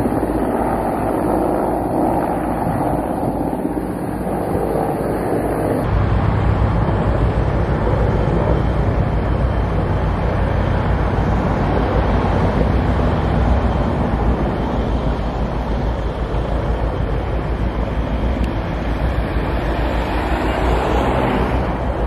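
Firefighting helicopter's rotor and engine running steadily for about the first six seconds. Then the sound changes abruptly to a steady low rumble of wind on the microphone.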